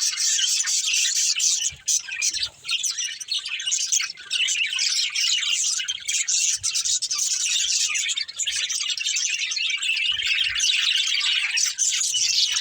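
Several budgerigars chirping and chattering continuously in dense, high-pitched twittering.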